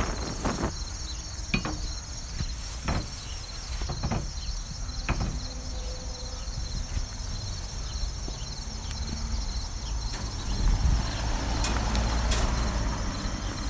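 Insects, such as crickets, chirring steadily in a fine, even pulse, over a low rumble. A few sharp knocks sound in the first half, and a louder noisy stretch with clicks comes near the end.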